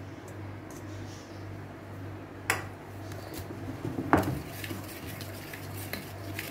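Wire whisk clinking and scraping against a stainless steel mixing bowl while flour is stirred into creamed butter and sugar. Two sharp metal knocks stand out, about two and a half and four seconds in, followed by quick light clinks of the whisk.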